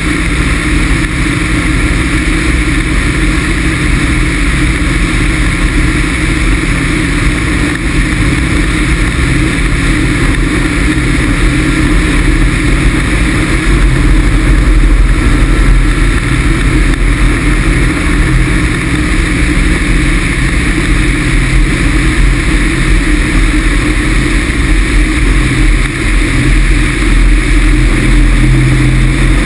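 Loud, steady wind rush and buffeting over a wing-mounted action camera on a Pegasus XL microlight gliding with its Rotax 447 engine off.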